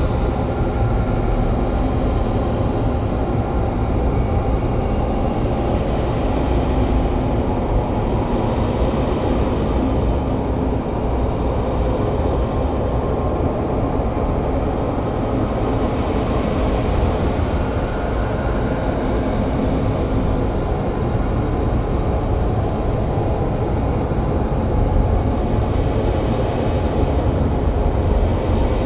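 Experimental noise-drone music: a dense, steady wall of noise, strongest in the low end, with slow swells of hiss coming and going higher up every few seconds.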